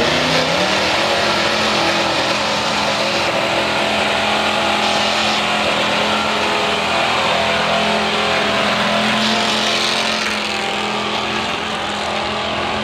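Stock gas-engine Dodge pickup truck running at full throttle under heavy load as it drags a weight-transfer pulling sled, its engine held at high, steady revs. The sound eases slightly near the end as the truck moves farther off.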